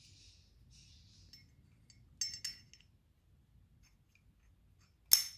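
AR-15 bolt sliding into its metal bolt carrier: a faint scraping, then two light metallic clinks a little after two seconds in, and a sharper, louder clink near the end.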